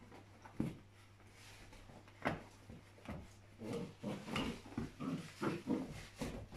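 Border Collie puppies and their mother play-fighting: short dog vocalisations and scuffling, a few isolated ones at first, then a quick run of them in the second half.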